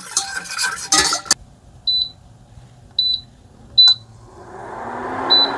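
A wire whisk scraping and clinking in a metal saucepan for about a second, then four short, high beeps from an Amzchef induction cooktop's touch controls as the burner is switched on. Near the end a hum and whoosh rise steadily as the cooktop starts heating.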